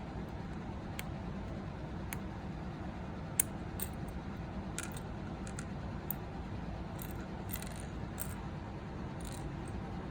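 Scattered small sharp clicks and taps of mechanical keyboard switch parts being handled during lubing, the loudest about three and a half seconds in, over a steady low background hum.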